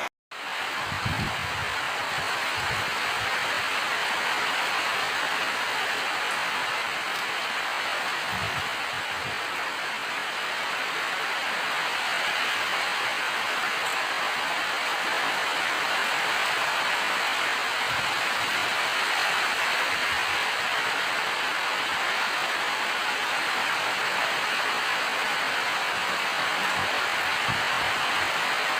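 Steady rain falling as an even hiss, with a few soft low thumps scattered through it. The sound cuts out for a moment just after the start.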